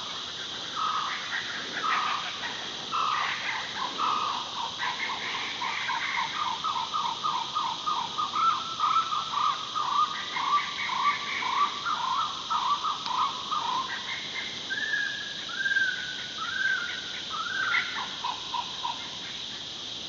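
Night chorus of wild calls: a long run of rapid repeated notes, about four a second, then a few short rising notes. Underneath is a steady high-pitched insect drone.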